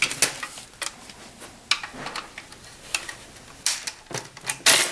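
Hard plastic parts of a Jura brew group clicking and knocking as its side cover is worked free with fingers and a small screwdriver. Irregular ticks run throughout, with a louder run of clicks near the end as the last hook comes free.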